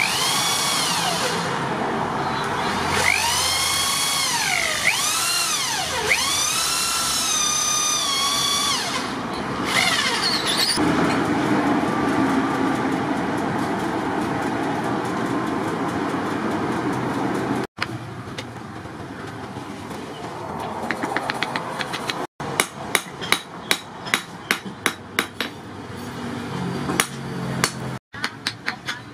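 A cordless drill boring into a wooden knife handle, its motor whine rising and falling with the trigger. After about ten seconds comes a steady rushing noise while the tang heats in a charcoal forge. Near the end comes a run of sharp hammer blows, about two a second, driving the wooden handle onto the hot tang.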